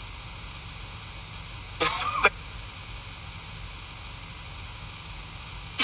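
Steady hiss throughout, broken about two seconds in by one short, pitched, voice-like sound lasting under half a second.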